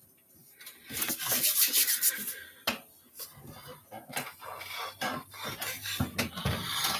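Rubbing and scraping handling noise right on the microphone of the streaming device, with a run of clicks and knocks; the loudest rubbing comes from about one to two and a half seconds in.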